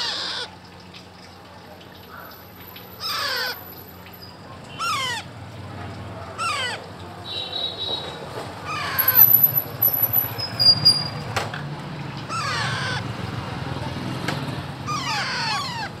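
Alexandrine parakeet chicks squawking: about seven short calls, each roughly half a second long, repeated every two seconds or so.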